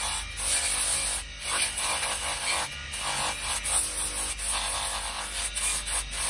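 Electric motor spinning a sanding disc, with the rasp of a small carved wooden figure being sanded against it over a steady low hum. The rasp drops away briefly several times as the piece is lifted and turned.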